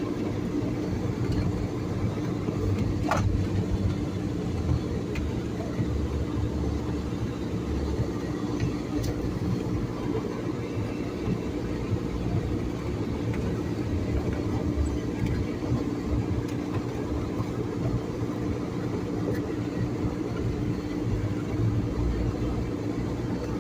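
A vehicle driving slowly over a rutted, snowy dirt track: a steady engine drone over a low, uneven rumble, with one sharp click about three seconds in.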